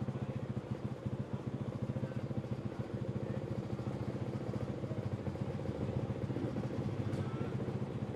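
A TM SMR 125 supermoto's single-cylinder 125cc two-stroke engine, fitted with an aftermarket HGS exhaust, idling steadily at an even, unchanging pitch.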